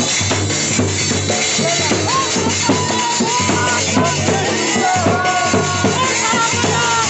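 Loud music with a steady drumbeat and a wavering melody line over it.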